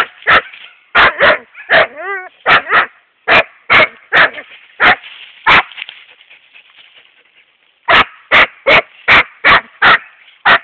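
Young Siberian husky barking repeatedly in short, sharp barks, with a brief whine about two seconds in. After a pause of about two seconds near the middle, the barks come faster, about two and a half a second.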